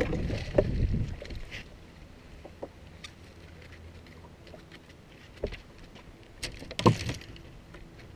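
Knocks and rattles of a landing net and tackle being handled on a boat deck, with wind rumbling on the microphone for the first second or so. A sharp, louder knock comes about seven seconds in.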